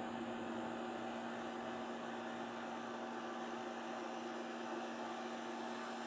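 Steady mechanical hum at a constant pitch over an even hiss.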